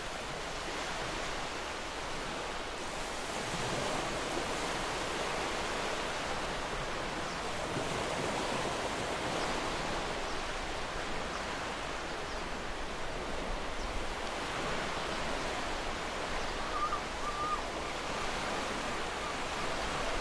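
Steady rushing of falling water from a waterfall, an even wash of noise with gentle swells.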